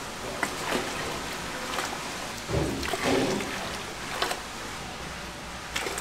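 Water ladled out of a large aluminium stockpot and poured back over the perforated steel baskets inside, splashing and trickling, with a few sharp metal clinks; the biggest splash comes about halfway through.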